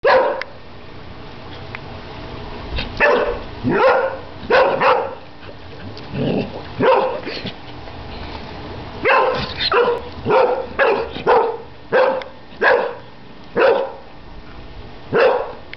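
One-year-old Airedale terrier barking at bubbles in the water: a string of short barks at an uneven pace, some in quick pairs, with a brief pause just past the middle.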